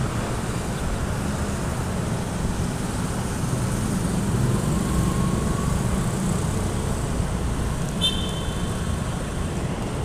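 Steady low rumble of city traffic, with a short high chirp about eight seconds in.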